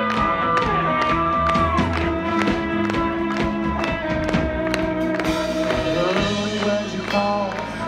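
Live country band playing amplified music: a steady drum beat under strummed acoustic guitar, with long held melody notes that slide from one pitch to the next.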